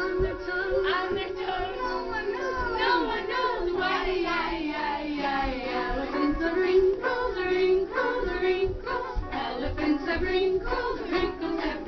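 A children's song with accompaniment, sung by young children's voices, playing for a dance.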